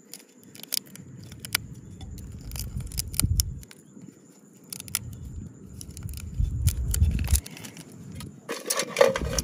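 Sharp clicks and crackles of a rhinoceros beetle's hard shell, wing cases and legs being pried apart and snapped off by fingers, with a louder crackling spell near the end. A low rumble comes and goes underneath.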